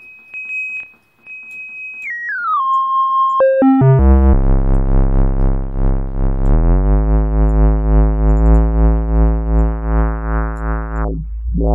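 Software synthesizer built in Reaktor playing a held test tone: a steady high pitch that drops in several distinct steps to a low, buzzy note rich in overtones, as its octave and semitone pitch controls are turned. Near the end its low-pass filter cutoff is swept down and back up, dulling and brightening the note.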